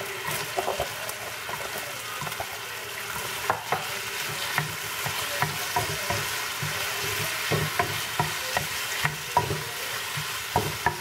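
Chicken and sliced carrots sizzling in a hot frying pan while a wooden spatula stir-fries them, with frequent knocks and scrapes of the spatula against the pan, more of them from a few seconds in.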